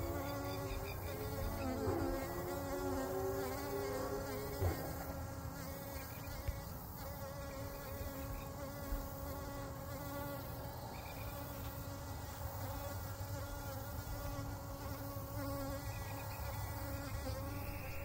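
Flying insects buzzing close by, their wingbeat hum wavering up and down in pitch over the first few seconds, then settling into a steadier drone.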